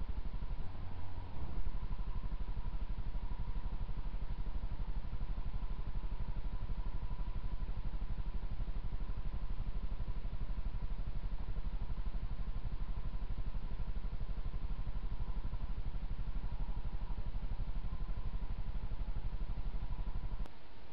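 Steady low electrical hum with hiss, the trail camera's own recording noise. A brief louder disturbance comes about a second in.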